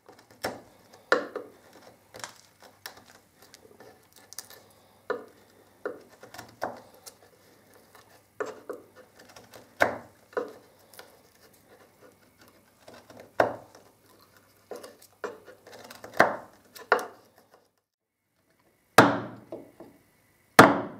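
Bench chisel paring a rabbet into the edge of a wooden board by hand, a short dry scraping cut with each push, coming irregularly about once a second. Near the end, two louder knocks.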